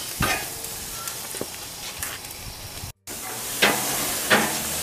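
Sausages sizzling on a hot gas grill, a steady hiss, with a few short clicks and scrapes of metal tongs on the grate as they are turned. The sound cuts out for an instant about three seconds in, then the sizzle comes back louder.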